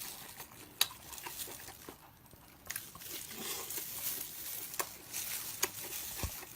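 A person chewing food close to the microphone, with scattered soft mouth clicks and smacks.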